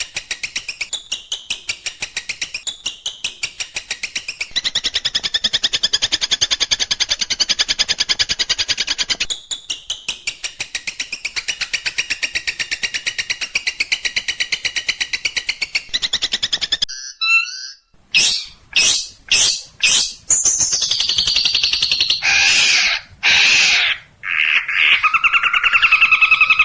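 Songbird song from an edited bird-song training recording: a fast, steady trill of rapidly repeated high notes for about 17 seconds. After a brief break, a different recording of loud, sharp calls and slurred whistled phrases.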